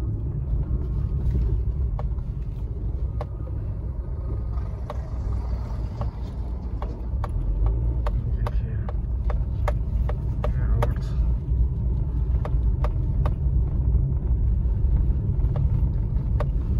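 Low, steady rumble inside a car cabin as the car drives over a rough unpaved dirt track, with frequent sharp clicks and knocks from the car jolting over the ruts.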